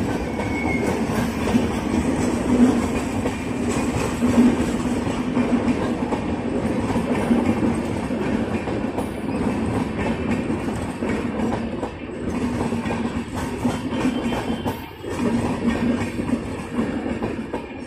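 Rajdhani Express LHB passenger coaches passing at speed: a steady rumble of steel wheels on the rails with a clickety-clack of wheels over the track, dipping briefly about fifteen seconds in.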